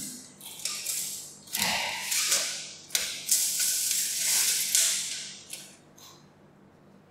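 Sheets of paper rustling and crinkling in irregular bursts as they are handled on the floor, dying away near the end.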